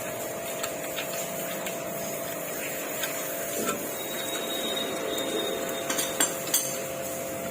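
A steady mechanical hum held at one pitch, with scattered light clicks and taps of hand tools on engine parts, and a few sharper clicks near the end.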